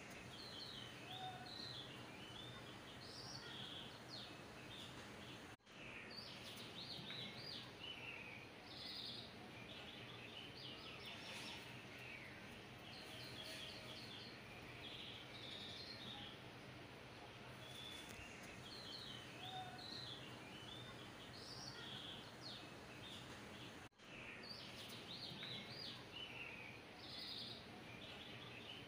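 Faint birdsong: many short chirps and trills over a steady low hiss, dropping out briefly twice, about 6 s and 24 s in.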